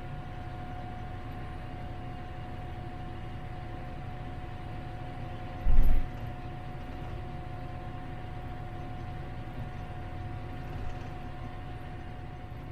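Tractor engine running steadily, heard from inside the cab while grooming a snow-covered trail, with a steady whine over the engine noise. About halfway through, one heavy low thump.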